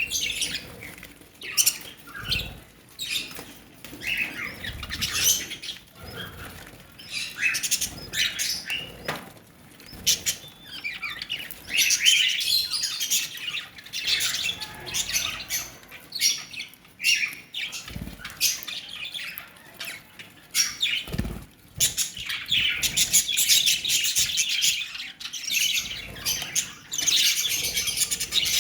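Pet lovebirds chattering and chirping in a dense stream of high, rapid calls, mixed with many short clicks and a few low thumps.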